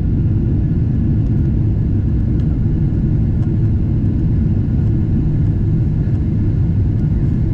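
Steady low rumble of engine and airflow noise inside the cabin of a Boeing 777-300ER airliner, holding even throughout.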